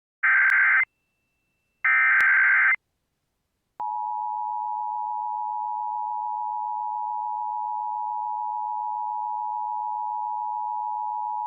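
Emergency Alert System signal for an evacuation-immediate alert: two short, loud bursts of buzzing SAME header data tones, then about a second later the steady two-note EAS attention tone starts and holds without a break.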